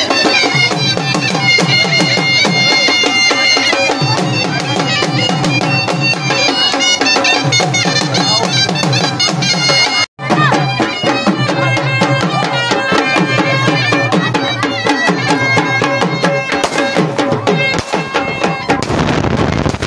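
Live Punjabi folk music: a dhol drum beating a fast rhythm under a reed wind instrument playing a droning, held melody. The music drops out for an instant a little past halfway.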